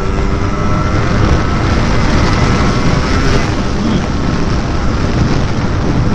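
Yamaha RX-King's two-stroke single-cylinder engine running hard through an open 'pure sound' aftermarket exhaust on an acceleration run. Its pitch rises slightly over the first couple of seconds.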